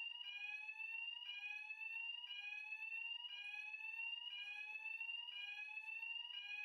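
Building fire alarm sounder sounding a repeating rising sweep tone, about one sweep a second, signalling a fire alarm in progress.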